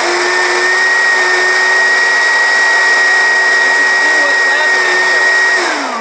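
Oreck XL upright vacuum cleaner running with a steady whine: it comes up to speed at the start and winds down with a falling pitch near the end as it is switched off. The brush roll is wound with string, which stops it turning properly, so the vacuum has suction but the brush does no cleaning.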